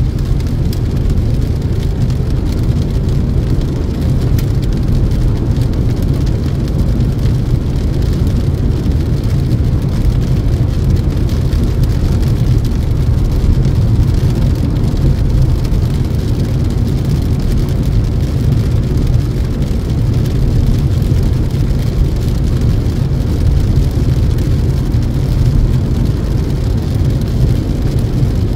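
Steady low road noise inside a moving car's cabin, its tyres running on a wet road, with rain hitting the windscreen.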